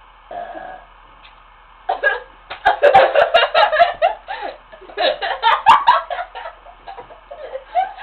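Girls laughing hard in quick, gasping, hiccup-like bursts from about two seconds in, after a short sound about half a second in.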